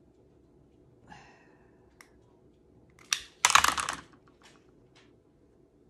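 A lighter that is wearing out being struck several times: a few short sharp clicks and one louder, half-second scratchy burst about three and a half seconds in.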